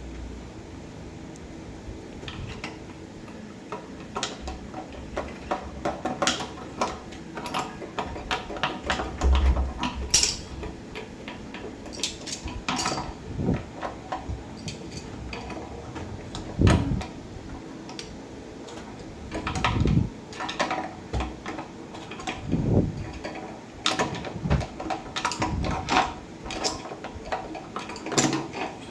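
Irregular clicks, clinks and knocks of hand tools prying and gripping at a shower valve knob stuck fast with hard-water scale, with several heavier knocks among them.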